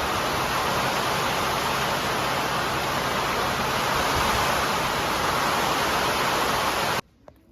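Heavy rain pouring down, a dense, steady hiss that cuts off abruptly near the end.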